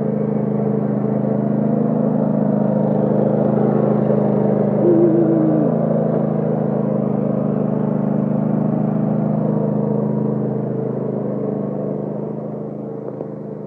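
Cub Cadet LT1050 lawn tractor engine running steadily under plowing load, growing gradually quieter near the end.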